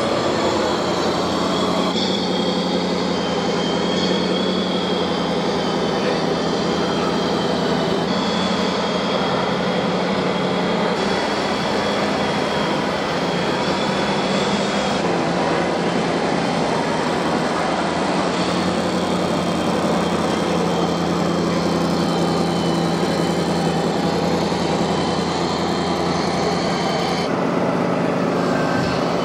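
Radio-controlled model trucks running: a steady mechanical drone with a high whine from the motors and gearing, changing abruptly a few times.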